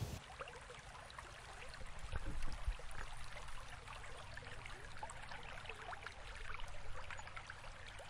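Faint trickling and bubbling water on a pond, a soft hiss flecked with small pops and drips, a little louder about two seconds in and again near the end.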